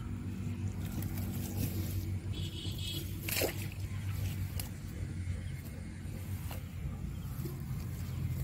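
Rustling and scraping of a cast net being lifted and dragged on grass, with scattered clicks and a sharp knock about three and a half seconds in, as caught fish flap in the mesh. A steady low drone runs underneath.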